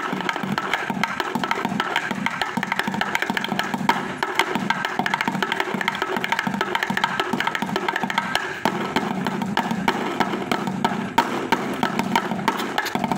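Bucket drumming: drumsticks beating a fast, unbroken stream of strokes on an improvised kit of paint cans and buckets.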